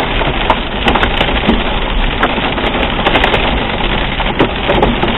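Hail, about pea-sized and getting larger, pelting down with rain. It makes a dense, steady clatter of many small sharp impacts over a rushing hiss.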